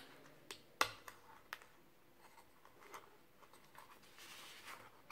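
Faint plastic clicks and taps from handling a hard plastic RLC meter case and pulling open its fold-out tilt stand. A few sharp clicks come in the first second and a half, the loudest about a second in, and a short soft scraping noise follows about four seconds in.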